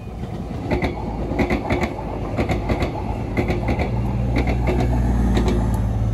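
Prameks diesel multiple unit (KRD) train passing close by. Its wheels clack over the track in quick pairs and threes, and its engine's low hum grows louder from about halfway through.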